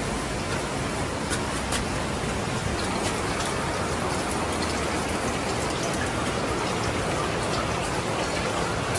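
Hot-spring water running steadily into the bath: an even splashing hiss with a few faint ticks.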